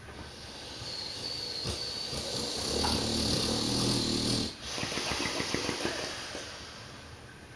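Dogue de Bordeaux (French mastiff) snoring in its sleep: a long buzzing snore that grows louder for a few seconds and breaks off suddenly about four and a half seconds in, followed by a softer fluttering breath that fades out.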